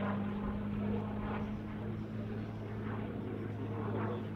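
Hawker Hurricane's Rolls-Royce Merlin V12 engine and propeller in flight: a steady, even drone.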